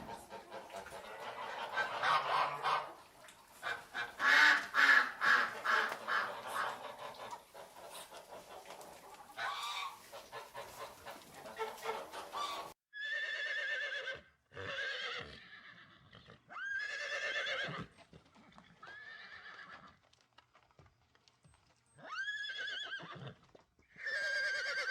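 Farm animal calls. For about half the time, a dense jumble of rapid calls like a flock of poultry clucking and cackling. Then, after an abrupt change, a series of about seven short, wavering, pitched cries with gaps between them.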